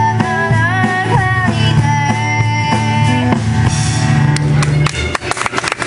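Live country band playing an instrumental passage on acoustic guitars, upright bass and drum kit, with a lead line sliding up and down in pitch. About four and a half seconds in the melody drops away and a run of sharp drum hits takes over.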